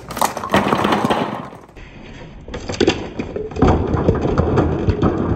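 A bowling ball rolls down a wooden ramp and crashes into a row of bowling pins, which clatter and tumble onto the board and into a plastic tub. The loud clattering comes in two bouts, the second starting about two and a half seconds in.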